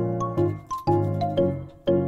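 Background music: a light tune of short notes that start several times a second, each fading away after it is struck.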